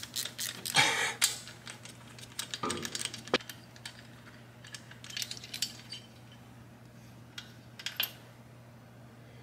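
Scattered metallic clinks and clicks, in a few short clusters, as a socket wrench works the front spark plug out of a Harley-Davidson Twin Cam 103 engine.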